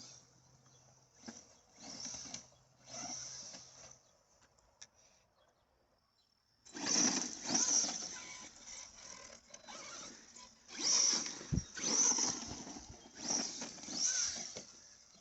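Arrma Big Rock 6S RC monster truck running on a 4S battery, its brushless motor and drivetrain whirring in repeated throttle bursts. A few short bursts come first, then a pause of a couple of seconds, then a louder run of bursts from about seven seconds in.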